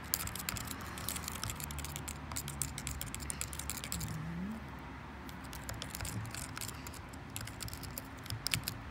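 Plastic drinking straw stirring milkshake in a thin plastic cup, rapid irregular clicking and scraping against the cup wall as lumpy powder is mixed into the milk. The clicking eases for a moment about four seconds in, then picks up again.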